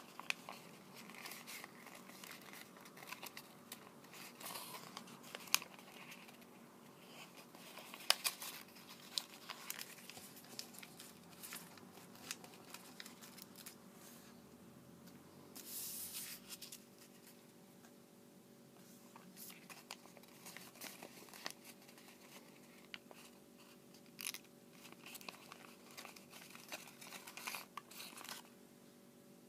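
Origami paper rustling and crinkling as it is folded and creased by hand, with irregular short scrapes and taps of paper and fingers; a brief louder rustle about halfway through. A faint steady hum runs underneath.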